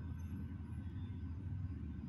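Steady low rumble of background noise, unchanging throughout, with no speech.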